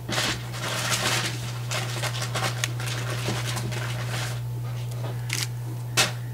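Food packaging rustling and crinkling as wrapped snack items are rummaged through inside a subscription box. The handling is dense for the first few seconds, then turns sparser with a couple of sharp clicks near the end, over a steady low hum.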